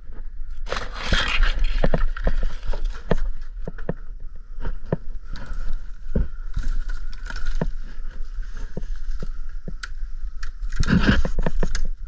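Dry, shaggy frond bases and fronds of a Mexican fan palm scraping and crackling against a climber's gloves, boots and climbing rope, with many small knocks. Louder bursts of scraping come about a second in and again near the end.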